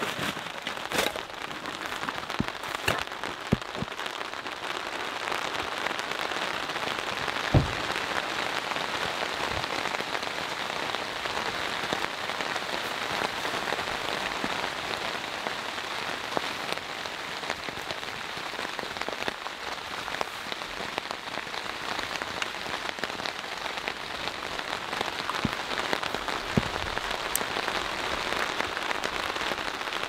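Steady rain falling on a tarp and tent fabric overhead, heard from inside the tent. A few scattered knocks come through, the loudest a single thump about seven or eight seconds in.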